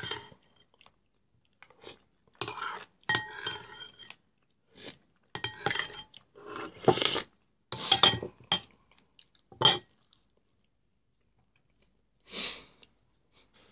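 Close-up eating sounds from a person spooning soup: chewing, and a metal spoon clinking against the bowl. They come in short bursts with quiet gaps between them.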